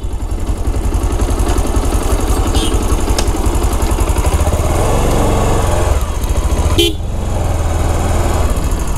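Motorcycle engine running at road speed with wind noise on the microphone, and a short horn honk about seven seconds in.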